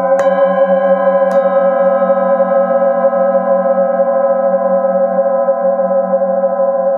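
Singing bowls struck with a mallet twice near the start, then a long, layered ringing of several overlapping tones with a slow wavering beat.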